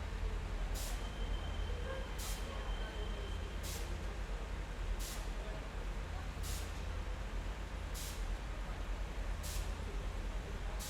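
Train station ambience: a steady low rumble under a wash of noise, with a short hiss repeating about every one and a half seconds and faint distant voices. A thin high tone sounds for a couple of seconds about a second in.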